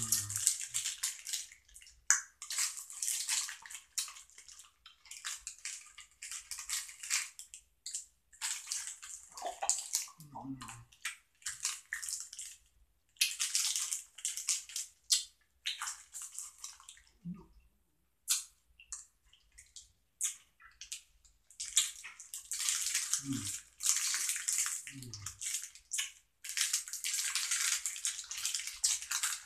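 Clear plastic candy bag crinkling in irregular bursts of a second or more as it is handled, with a few brief low vocal sounds between.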